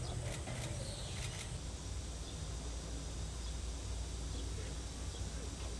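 Steady low outdoor rumble, with a few sharp clicks in the first second and a half.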